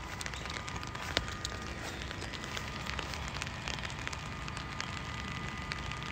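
Steady rain falling, an even hiss with scattered small drop ticks and one sharper tick about a second in. A faint steady tone runs underneath.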